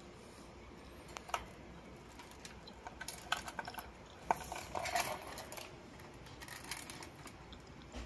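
Faint scattered clicks and light metallic rattles from lovebirds moving about a wire cage, with feet and beaks on the bars, perches and nest box. The ticks come in small clusters rather than a steady rhythm.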